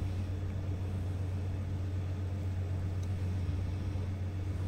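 Komatsu PC210-8 excavator's diesel engine idling with a steady low hum.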